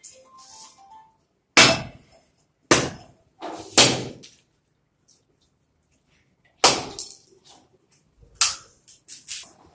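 A series of sharp, loud cracking knocks at uneven intervals, about six strong ones: a coconut being struck against a hard floor to break it open as a ritual offering.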